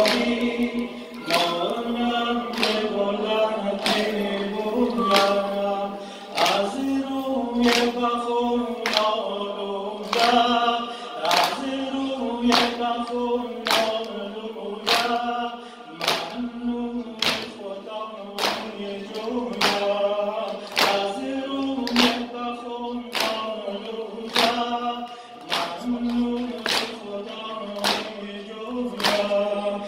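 A noha, a Shia mourning lament for Muharram, sung by a male reciter with a group of mourners singing along. Steady beats of hands striking chests (sineh-zani) mark the rhythm about once every three quarters of a second.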